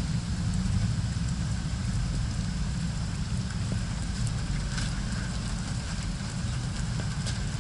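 Distant thunder: a deep, low rumbling that holds steady, with a fainter even hiss above it.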